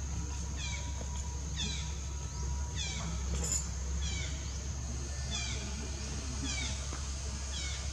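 Baby monkey giving short, high-pitched squeaking calls that fall in pitch, about one a second, over a steady low hum.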